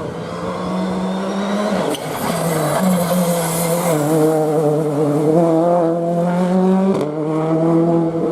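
Rally car engine running hard at high revs, holding a steady, loud note, with a brief break and a step in pitch at a gear change about two seconds in and again about seven seconds in.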